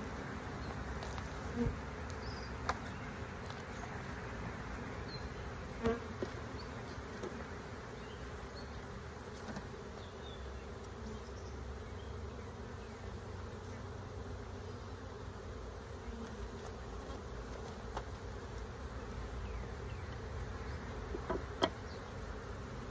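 Honeybee colony humming steadily from an opened hive, bees flying around the boxes. A few short knocks, from wooden hive frames being handled, come about two, three and six seconds in and again near the end.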